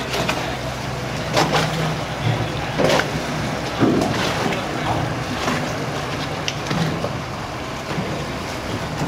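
Dive boat's engine running at low speed as it motors through the harbour, a steady low hum under water and wind noise, with a few short thumps in the first half.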